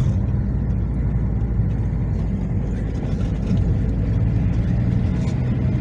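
Steady low drone of a car's engine and tyres heard from inside the moving car.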